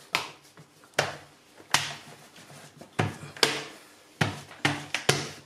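Rolling pin working pastry dough on a granite countertop, giving a string of sharp, irregular knocks as it strikes and rolls on the stone.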